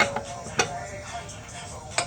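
A few sharp clicks and knocks, spaced irregularly, from tools being handled at the car's wheel as work on taking the tire off begins.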